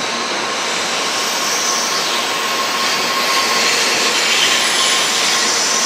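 Shinkansen bullet train running: a loud, steady rush of wheel and air noise that grows slightly louder in the second half.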